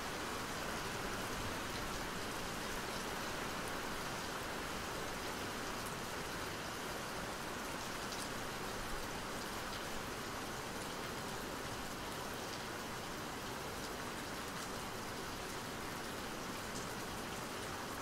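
Steady rain falling, an even hiss with scattered faint drop ticks.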